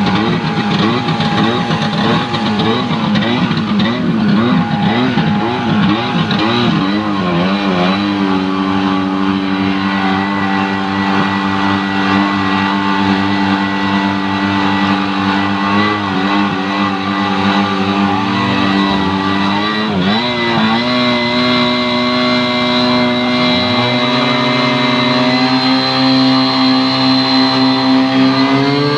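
Tohatsu V50 Rabbit portable fire pump engine running on test, its pitch wavering for the first several seconds, then holding steady. It dips briefly about two-thirds of the way through and steps up in speed near the end.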